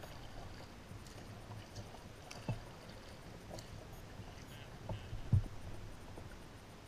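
Kayak paddle strokes dipping and splashing in calm water, with a few dull knocks of the paddle against the kayak, the loudest about five seconds in as paddling stops.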